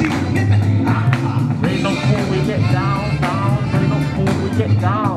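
Music with a steady drum beat and a strong bass line, with a singing voice over it.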